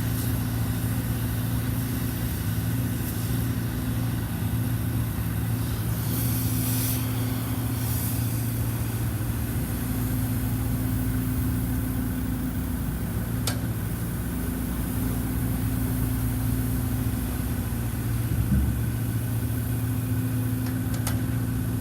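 Cat 300.9D micro excavator's small diesel engine running at a steady speed, with a short hiss about six seconds in and a brief low thud near the end.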